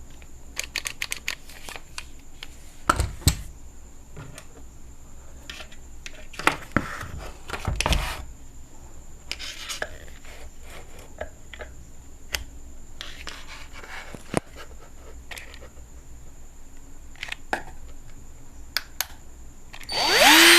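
Scattered clicks and knocks of handling, then in the last second a cordless drill's motor spins up with a rising whine and settles at a steady speed. The drill is running on its battery pack rewired to take power from a 12-volt charger.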